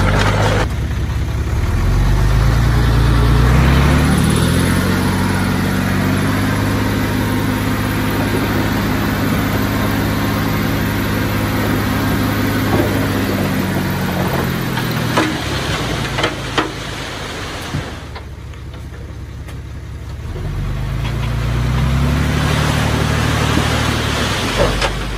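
Heavy diesel engine of earthmoving machinery revving up and running steadily under load, easing back to a lower, quieter idle near the middle, then revving up again near the end. A few sharp knocks sound partway through.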